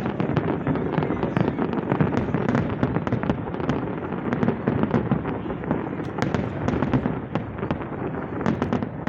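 Fireworks display going off in rapid succession: many sharp bangs and crackles over a continuous low din.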